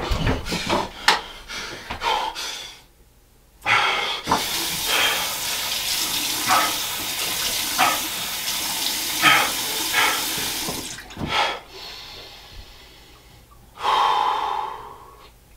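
Bathroom sink tap running, water splashing in the basin as someone washes at it, then trailing off. A few knocks come before the water starts, and there is a short loud breathy burst near the end.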